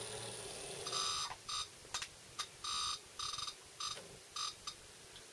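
Model locomotive's motor, driven by a new DCC decoder, whining in short irregular spurts that cut in and out about ten times as it moves; the stuttering is the sign of dirty wheels losing contact with the rails, which the owner calls a little cruddy.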